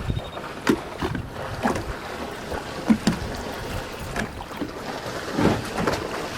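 Water lapping against a small fishing boat's hull, with wind rumbling on the microphone and scattered light knocks about once a second.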